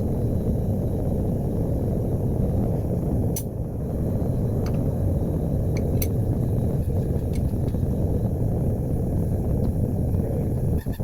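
Single-burner propane forge running with a steady roar, with a few faint light clicks a few seconds in.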